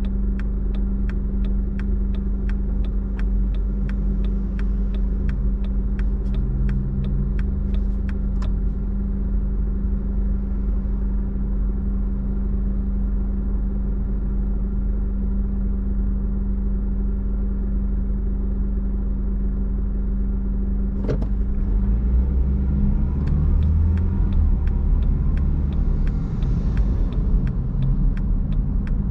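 Car being driven: steady engine and road rumble with a low hum. Even, regular clicking runs for the first eight seconds or so and comes back in the last quarter. A single sharp click sounds about two-thirds of the way in, and the rumble grows louder after it.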